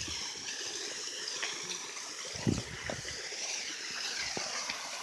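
Steady rushing hiss of a waterfall's falling water, with a brief low thump about halfway through.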